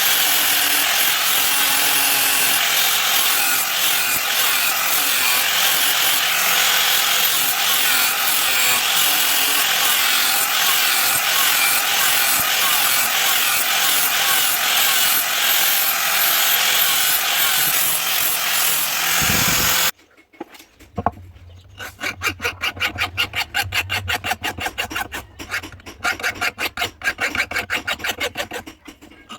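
A power grinder running steadily against the steel of a knife blade for about twenty seconds, then cutting off suddenly. After that a file or abrasive is worked back and forth over the steel by hand in quick, even strokes, several a second.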